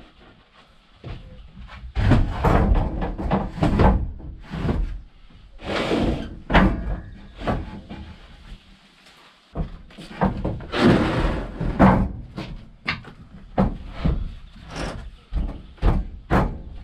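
Irregular wooden knocks and thuds as logs and boards are handled and set in place as supporting legs under a bed frame, in clusters with a short lull in the middle.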